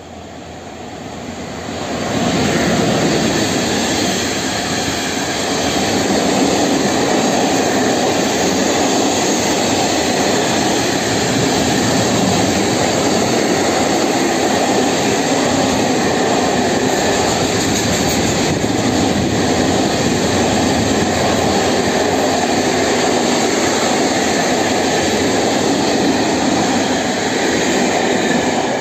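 ET22 electric freight locomotive coming up and passing close about two seconds in, then a long train of open-top freight wagons running past at speed with a loud, steady roar of wheels on rail.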